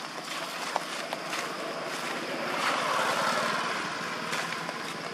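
A vehicle passing on the road: a rushing noise that swells to its loudest a little past halfway and then fades.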